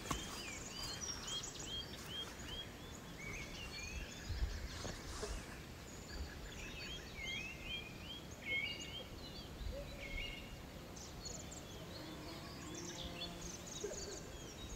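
Songbird calling in quick runs of short, arched whistled notes, about three or four notes a second, with other faint bird notes around it. A dull thump comes about four seconds in.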